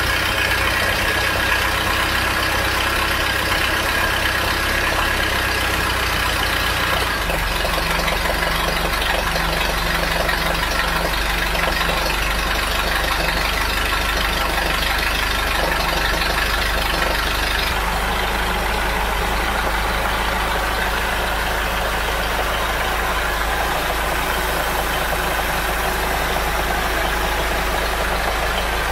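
Mercruiser 3.0 four-cylinder marine engine running steadily at idle just after starting, on its newly fitted water circulation pump.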